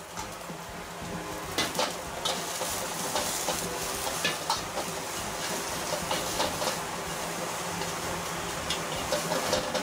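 Mashed salted egg and shredded garlic sprouts sizzling in sesame oil in a wok while being stir-fried. A spatula scrapes and clicks against the pan several times.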